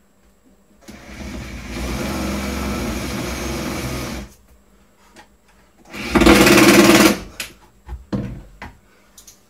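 Cordless drill running in wood: a run of about three seconds, a louder, shorter run about six seconds in, and a brief burst near the end.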